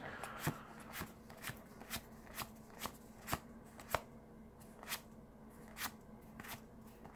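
Magic: The Gathering trading cards being flicked through one at a time in the hand. Each card gives a faint snap, roughly one every half second to a second.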